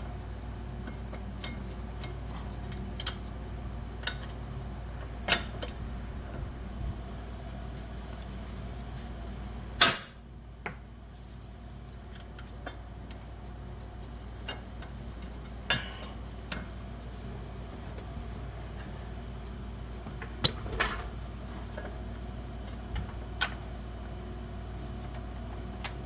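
Scattered metallic clinks and clanks of hand tools and bolts against the suspension plate and lower control arm as the plate is fitted, with one loud clank about ten seconds in. A steady hum from a shop fan runs underneath.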